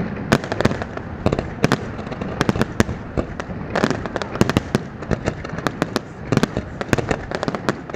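A fireworks display: rapid, irregular bangs of shells bursting, several a second, over a continuous crackle.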